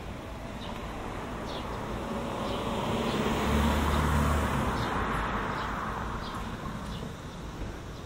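A car driving past on the adjacent street, its engine and tyre noise swelling to a peak about four seconds in and then fading away.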